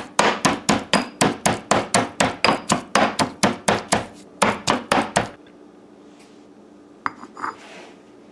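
Stone pestle pounding garlic and hot pepper in a stone mortar: rapid, even strikes about four a second, with a brief pause near four seconds, stopping about five seconds in.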